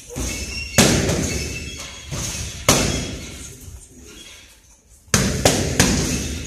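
Strikes landing on focus mitts during pad work: about seven sharp smacks in three groups, each with a ringing echo in a large gym hall.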